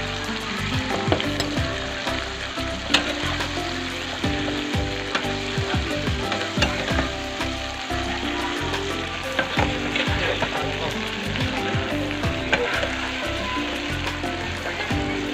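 Food sizzling and frying in a hot pan while it is stirred, with sharp clicks of a utensil against the pan now and then.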